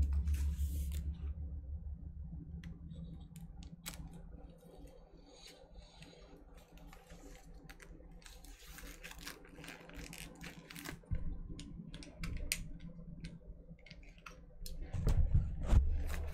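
Scattered light clicks, taps and scratches of a box cutter working at the plastic shrink wrap of a vinyl LP sleeve. A low rumble fades away over the first couple of seconds, and another rises briefly near the end.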